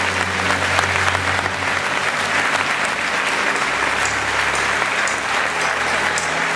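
Large audience applauding in a big concert hall, a dense, steady wash of clapping.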